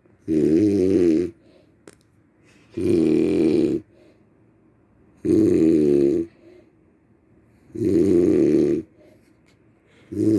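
Loud, regular snoring: four wavering, pitched snores about a second long, one every two and a half seconds, with a fifth starting at the very end.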